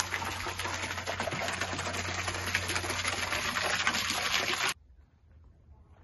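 Thin fountain jet splashing into a stone basin, a steady patter of falling water over a low steady hum. It cuts off abruptly near the end, leaving only a faint outdoor hush.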